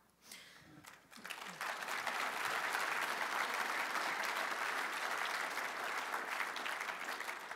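Audience applause that builds up about a second in, holds steady, and fades near the end.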